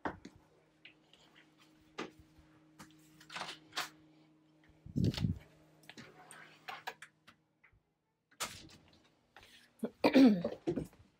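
Scattered knocks, clicks and handling noise, with a heavier low thump about five seconds in and a faint steady hum under the first half. Near the end comes a short pitched vocal sound, the loudest thing here.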